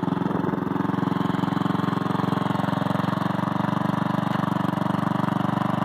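The 12 hp Briggs & Stratton engine of a modified Simplicity 4212 lawn tractor running steadily at an even pitch.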